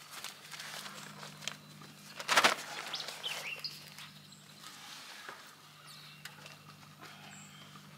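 A carport cover being unrolled and carried, with footsteps and rustling and one loud, brief crinkle of the cover about two and a half seconds in. Birds chirp now and then.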